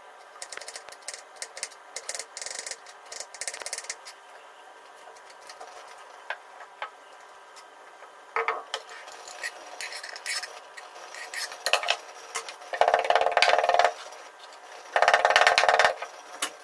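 A kitchen knife clicking and tapping on a wooden cutting board as garlic and basil are cut. Near the end a wooden pestle grinds in a wooden mortar: two loud stretches of grinding, each about a second long.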